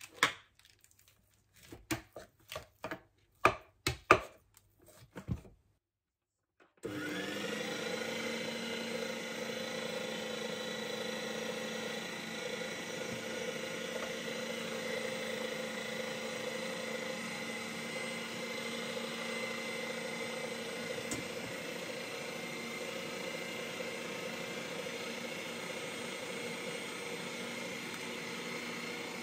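Electric meat grinder running steadily with its sausage-stuffing tube, pushing seasoned pork into a casing. A few sharp clicks and knocks come first, then the motor starts about seven seconds in and keeps up an even hum.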